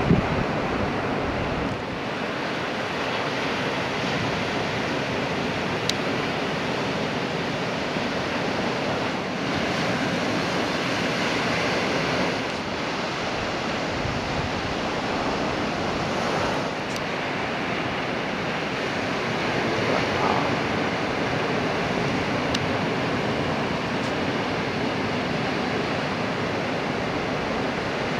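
Ocean surf breaking and washing onto the shore, a steady rushing noise that swells and eases slightly, with some wind on the microphone.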